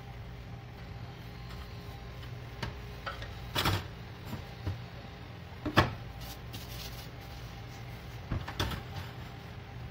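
Metal cake ring molds being moved and set down on a stainless steel counter: a few scattered short metallic knocks, the loudest about six seconds in, over a steady low hum.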